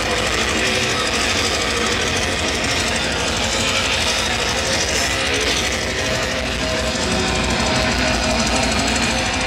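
Heavy metal music with electric guitar, running steadily.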